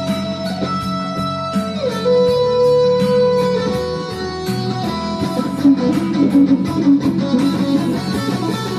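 Instrumental guitar music: a lead guitar holds long notes and slides one down in pitch about two seconds in, over a steady beat.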